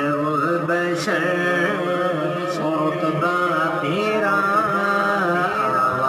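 Islamic-style vocal chant used as background music: one voice chanting a slow, ornamented melody that bends up and down, over a steady low drone.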